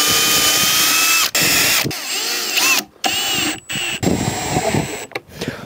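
Cordless drill-driver running in several short runs with brief pauses between, its motor whine bending in pitch as it drives screws into the wooden boards of a raised bed.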